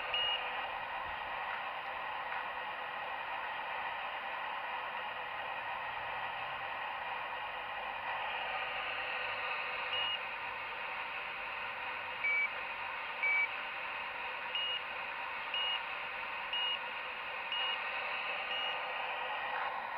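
Short electronic beeps over a steady hiss: one at the start, then a run of beeps about a second apart in the second half, two of them lower in pitch.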